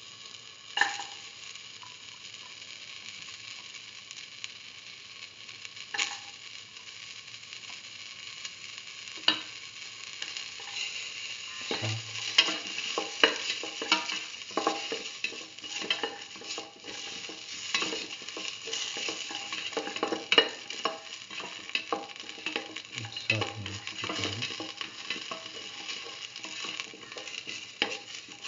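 Sliced onions, shallots and garlic sizzling in oil in a metal pan while they sauté. A few scattered knocks at first, then from about eleven seconds in the pan is stirred, with a utensil scraping and clacking against the metal over the steady sizzle.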